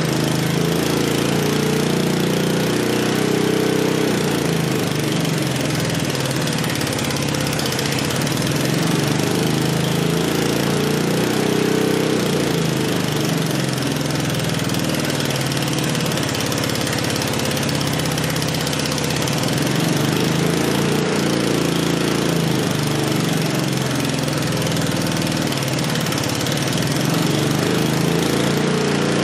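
Small Honda engine running steadily on wood gas from a gasifier, driving an alternator.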